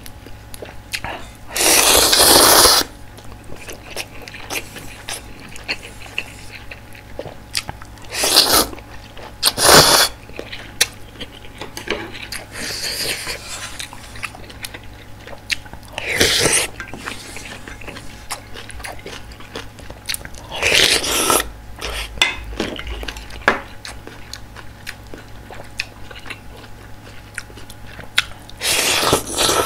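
Close-miked eating of instant ramyeon: loud slurps of noodles, each a second or less, about seven times, with wet chewing and small mouth clicks in between.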